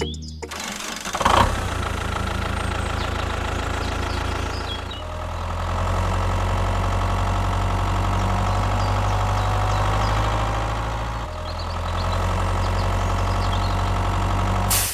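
An engine running steadily at idle, a low even hum whose note changes abruptly about five seconds in and again about eleven seconds in.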